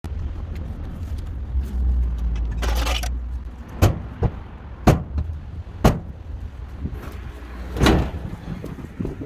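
Three sharp knocks about a second apart, with two brief scraping bursts, one before and one after, over a low rumble.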